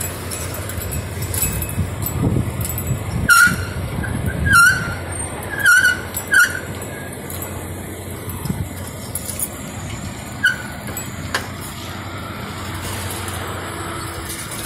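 Bicycle riding over brick paving and asphalt: a steady rumble of tyres and street noise, with several short high squeaks and clicks in the middle stretch.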